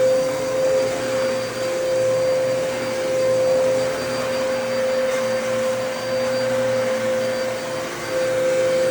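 Dyson DC33 Multi Floor bagless upright vacuum cleaner running: a steady motor whine with one strong tone over airflow noise, its loudness rising and dipping slightly.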